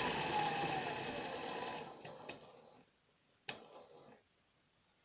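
Pfaff 138 industrial zigzag sewing machine stitching at speed, then slowing, with its pitch falling, and stopping about two to three seconds in. A sharp single click with a brief whir follows about a second later.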